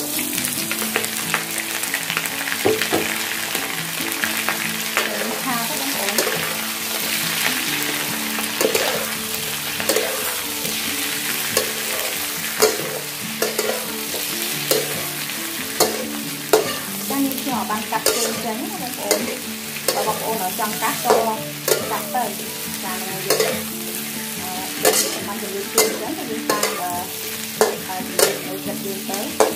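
Raw shell-on shrimp sizzling in hot oil and garlic in a metal wok, stir-fried with a metal ladle that clicks and scrapes against the wok. The sizzle is steady, and the ladle strikes become sharper and more frequent in the second half.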